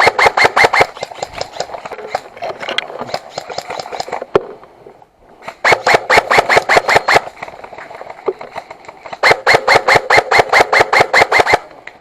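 Airsoft electric gun firing full-auto: three long bursts of rapid, evenly spaced shots, one ending about a second in, another near the middle and a longer one late on, with fainter scattered shots between.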